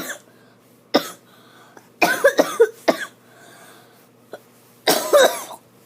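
A person in a fit of coughing they can't stop. There is a single cough about a second in, a quick run of several coughs around two seconds, and another burst of coughs near the end. Some of the coughs carry voice in them.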